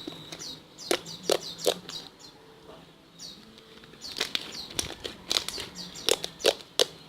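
Slime being squeezed and worked by hand, making sharp wet clicks and pops: a few about a second in, then a quick run of them from about four seconds on. The slime is a runny one revived with a fever-reducing gel patch, now stretchy and clicking well.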